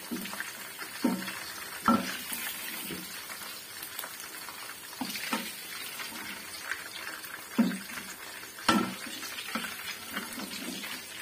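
Wooden spatula knocking and scraping in a non-stick karahi as fried chicken koftas are lifted out of hot oil, a handful of short sharp knocks over a low, steady sizzle of the oil.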